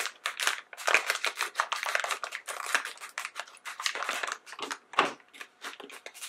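Scissors snipping through a plastic blind-bag packet, with the wrapper crinkling as it is cut and pulled open: a rapid run of crackles and snips.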